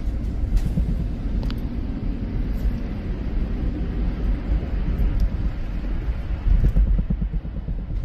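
Steady low rumble of a car driving on a snowy highway, heard from inside the cabin: road and engine noise.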